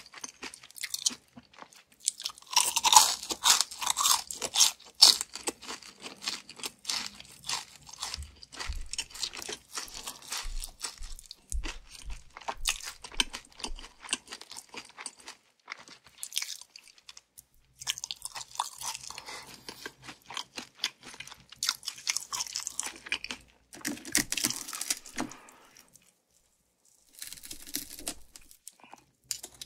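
Close-miked eating: crunchy bites and chewing in uneven runs of crackling, with a brief pause near the end.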